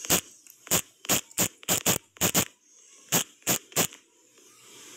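Typing on a smartphone's on-screen keyboard: a quick, uneven run of about a dozen sharp taps over roughly four seconds as a password is entered, then the taps stop.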